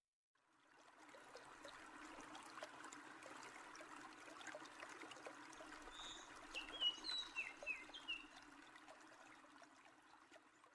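Faint trickling stream with a few quick bird chirps about six to eight seconds in; the sound fades in at the start and fades out at the end.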